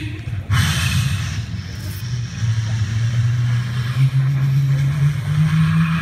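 A man's voice, amplified through a PA, imitating a diesel railcar pulling away: a short burst of hiss about half a second in, then a low engine drone that climbs in pitch in steps as the train accelerates.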